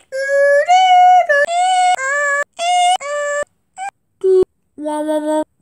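A high-pitched voice holding wordless sung notes in a string of short stretches, the pitch stepping up and down, then dropping lower about five seconds in.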